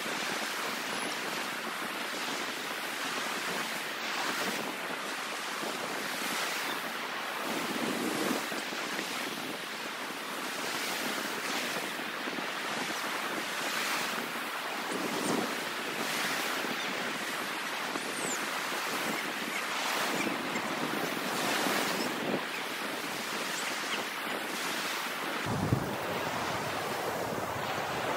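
Ocean surf washing and breaking on a sandy beach: a steady rush of noise that swells every few seconds as waves break.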